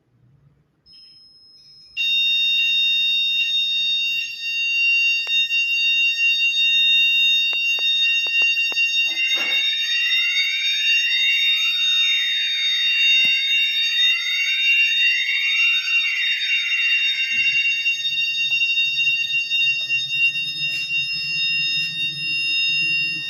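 Fire alarm sounding during a panel test: a steady shrill tone cuts in about two seconds in and holds to the end. From about nine seconds a siren sweeps up and down over it for several seconds, with a few clicks before it starts.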